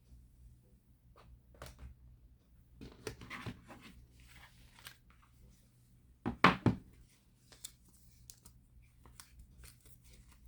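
Hands handling and opening product packaging: scattered light clicks and rustles, with a louder short double burst of noise about six and a half seconds in.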